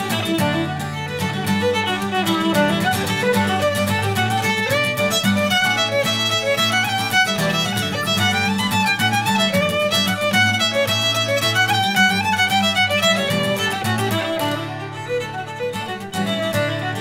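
Shetland fiddle tune played on fiddle, with strummed acoustic guitar accompaniment: a quick, busy bowed melody over steady chords. It is briefly softer near the end.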